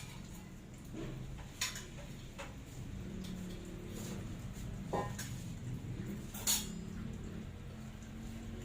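Cutlery and dishes clinking: a few separate sharp clinks of utensils on dishes, the loudest about six and a half seconds in, over a steady low hum.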